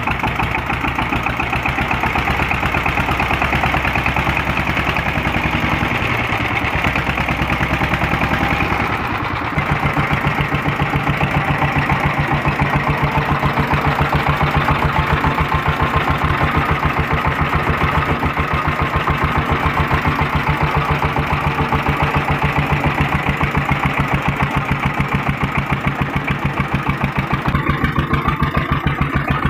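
Stationary diesel engine running with a fast, even exhaust beat. About nine seconds in the sound shifts slightly and the beat becomes steadier and more distinct.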